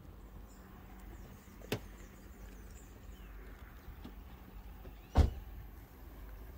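Quiet outdoor background with a faint steady hum, broken by two short knocks: a light one just under two seconds in and a heavier thump a few seconds later.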